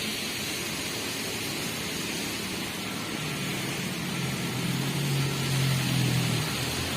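Diesel engine of heavy machinery running under a steady hiss, revving up about halfway through and holding higher for a couple of seconds before easing off near the end.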